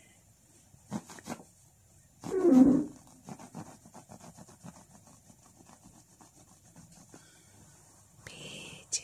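A cat pawing and scrabbling at a fleece blanket, with rustling and scratching and one louder scuffle about two and a half seconds in, followed by faint scratching ticks.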